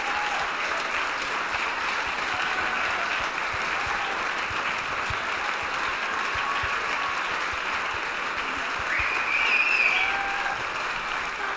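Audience applauding steadily, with a few scattered voices cheering over it; the applause swells briefly near the end.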